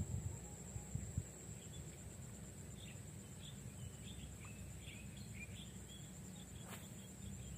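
Steady high-pitched insect drone with a scatter of short bird chirps in the middle, over a low rumble that fades after the first second or so. A single sharp click sounds near the end.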